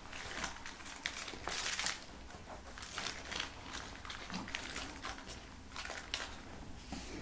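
Faint irregular clicks and crinkly rustling, a few sharper ticks scattered through, with no voice or hold music.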